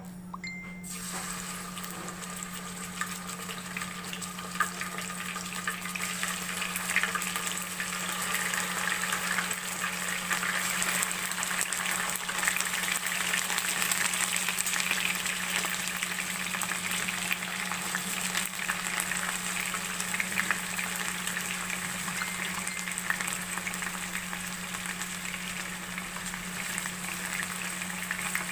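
Marinated chicken drumsticks and thighs frying in hot oil in a nonstick pan: a steady sizzle dense with crackles, starting about a second in, with the pieces stirred and turned with a fork.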